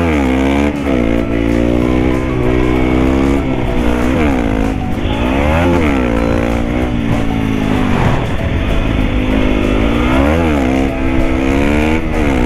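Single-cylinder supermoto engine under way, its pitch climbing and then dropping about four times as the rider accelerates and shifts gear, with wind rushing over the microphone.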